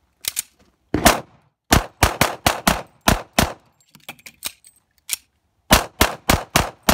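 A single-stack semi-automatic pistol firing a rapid string of about a dozen shots in quick groups, with a pause of about a second near the middle.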